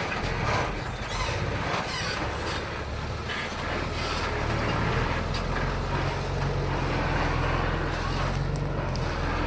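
Bulldozer diesel engine running, its low steady note firming up about a third of the way in, with scattered metallic clanks and rattles over it.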